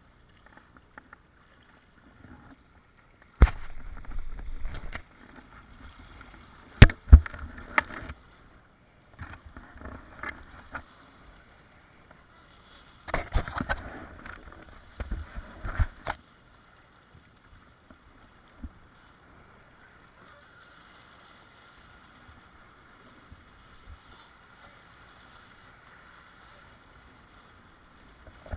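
Water rushing and splashing around a windsurf board sailing over chop, with sharp knocks and short loud spells of splashing at several points in the first half, then a quieter steady rush.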